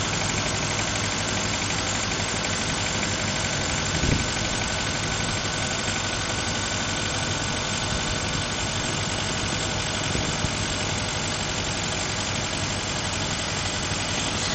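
Suzuki Escudo's G16A 1.6-litre 16-valve four-cylinder engine idling with a steady knock, which the owner suspects comes from the cylinder head. A single louder thump about four seconds in.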